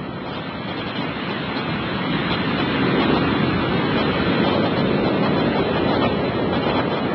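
Surf from a typhoon swell breaking on the shore, a steady rush of waves that grows louder about two seconds in.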